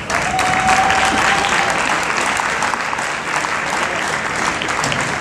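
Arena audience applauding, starting suddenly and holding steady, with one held high note over the clapping in the first two seconds.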